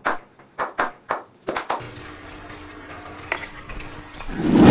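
A few quick clicks, then water running steadily with a faint low hum, as from an aquarium filter's outflow. A low rumble swells near the end.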